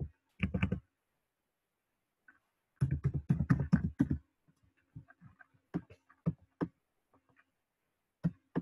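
Typing on a computer keyboard: a few keystrokes near the start, a quick run of keystrokes about three seconds in, then scattered single clicks.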